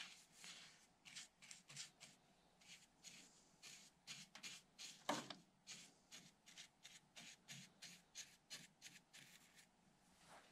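Acid brush stroking thinned epoxy onto the bare wood of an engine box: short, soft scratchy strokes, about two to three a second, with one louder knock about halfway through.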